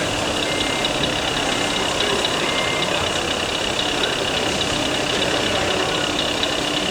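Electronic diesel-truck engine sound from a radio-controlled scale truck's sound module, idling steadily through a small speaker.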